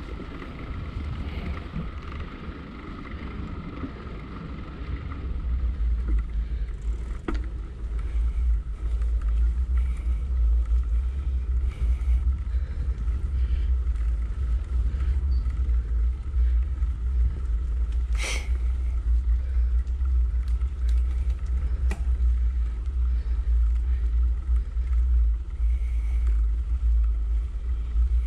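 Wind and trail vibration on the microphone of a camera riding a mountain bike up a dirt trail: a steady low rumble that grows louder about five seconds in. A few sharp clicks come through, the loudest about 18 seconds in.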